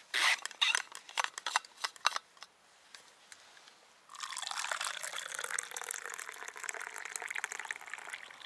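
A few sharp clicks and knocks from a thermos being handled and opened, then, about four seconds in, hot tea pouring steadily from the thermos into its steel cup.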